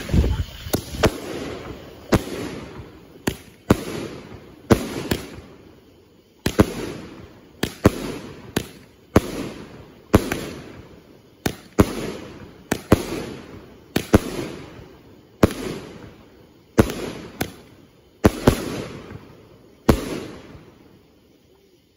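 PITA multi-shot firework cake firing: a steady string of sharp bangs about once a second, many in close pairs, each trailing off over about a second. The last shot comes near the end and the sound fades out.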